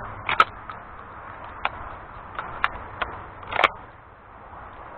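About half a dozen sharp metallic clicks and knocks from a semi-automatic shotgun being handled and its action worked, the loudest near the start and again about three and a half seconds in. They come as a weak shell has failed to cycle the action properly.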